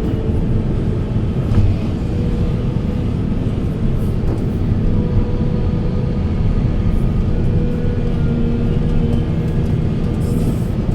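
Heavy Volvo 480 excavator's diesel engine running steadily under load, with one brief knock about a second and a half in.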